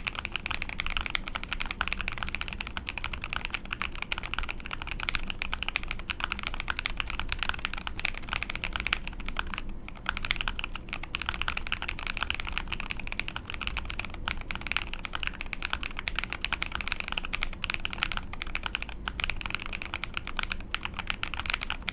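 Continuous typing on an Ai03 Polaris mechanical keyboard with a POM plate, Krytox-lubed Lavender linear switches and ePBT keycaps: a fast, dense stream of key strokes, with a brief pause about ten seconds in.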